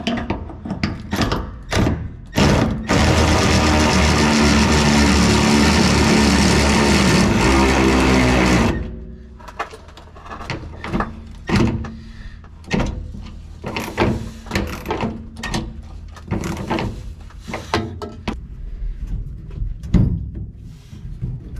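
A power tool runs steadily for about six seconds, starting and stopping abruptly; this is likely the straps on a pickup's fuel tank being tightened. Before and after it come scattered sharp clicks and clanks of hand tools and metal.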